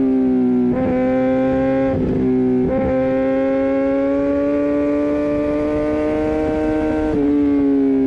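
Kawasaki ZX-10R inline-four engine running at high revs with a steady, high note that climbs slowly. It breaks off briefly three times, about a second in, around two seconds in and near the end, the pitch dipping slightly each time.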